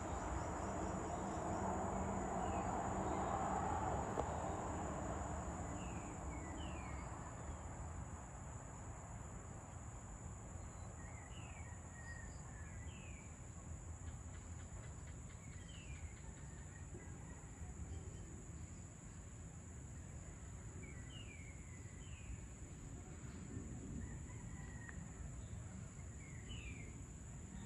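Evening insects giving a steady, high-pitched drone, with a bird repeating short falling notes in small groups about every five seconds. Underneath is a low background rumble, louder for the first few seconds.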